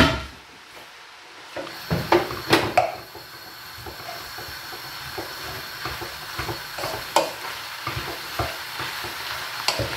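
Wooden spoon stirring kale, sausages and mushrooms in a frying pan, knocking and scraping against the pan, with a cluster of sharp knocks about two seconds in. Underneath, the food sizzles steadily in the sausage fat, a little louder toward the end.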